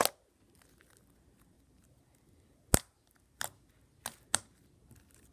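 Slime being handled, giving about five short, sharp pops and clicks: one at the start, then a cluster from a little before the middle to about a second before the end.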